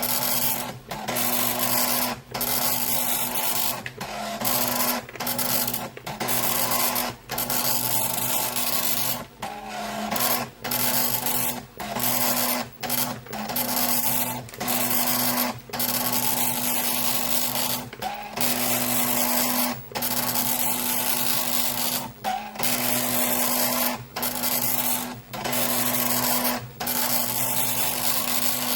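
Philips NMS 1421 7-pin dot matrix printer printing a program listing: the print head chatters across the page line after line, with a short break roughly every second or two as it finishes a line and the tractor-fed paper advances.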